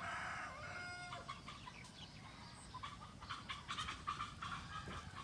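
Faint chickens: a drawn-out rooster crow in the first second or so, then a run of short clucks.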